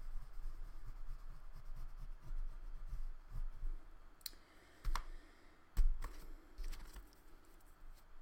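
Oil pastel rubbing softly on paper, then a few sharp light clicks and taps as pastel sticks are set down and picked up on the tabletop, the loudest a little past the middle.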